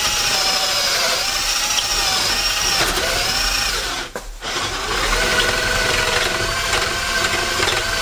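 Cordless drill turning a 14 mm wood bit into multiplex plywood, its motor whine wavering with the load. It stops briefly about four seconds in, then runs again.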